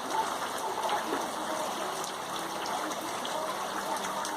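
Rain falling with water running and trickling, a steady rushing noise with scattered small drip ticks.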